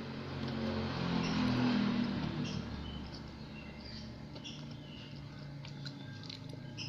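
A motor vehicle passing, its noise swelling to a peak about a second and a half in and fading away, with short high chirps of small birds.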